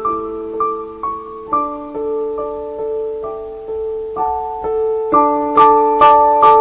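Background music: piano playing a slow melody of single struck notes, about two a second, each one fading.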